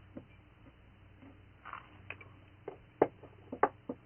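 Scattered sharp clicks and clinks of cutlery against plates during a meal, loudest about three seconds in, over a faint steady low hum.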